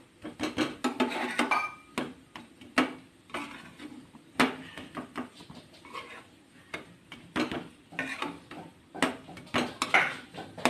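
Steel spatula scraping under and tapping on a flat griddle (tawa) as cashew patties are flipped over one by one: a run of irregular scrapes and taps with short gaps between them.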